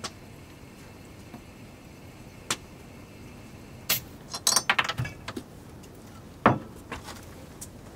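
Gas refill can pressed onto a Primus gas canister through a refill adaptor, with a faint steady hiss of gas transferring, which stops about four seconds in. Metal clicks and clinks follow as the can is pulled off the adaptor, then one loud knock as it is set down on the table.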